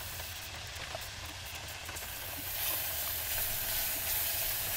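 Ground beef sizzling as it browns in an enamelled cast-iron saucepan on a gas burner, a steady hiss that grows a little louder about halfway through.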